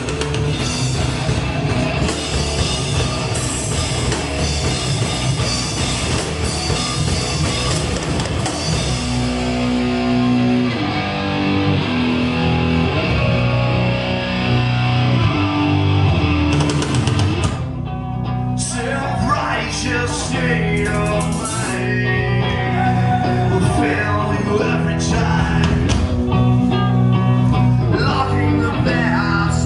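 Metal band playing live, with distorted electric guitars, bass guitar and drum kit. About a third of the way in, the cymbals drop away and sustained low guitar and bass notes carry the riff. A brief break comes just past halfway, and then the band resumes with a choppier rhythm.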